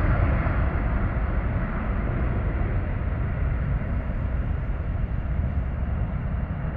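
Boeing 777 freighter's twin GE90 turbofan engines at takeoff thrust as it climbs away. A deep, steady rumble that slowly fades.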